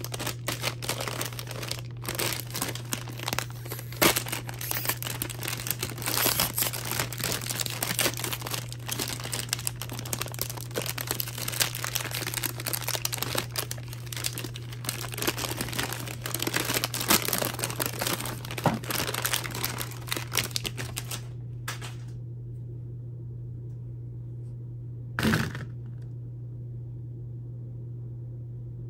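A foil-lined plastic candy bag of Wiley Wallaby soft & chewy licorice being handled and torn open, giving dense crinkling and crackling that stops about two-thirds of the way through. After that only a steady low hum remains, with one short rustle a few seconds later.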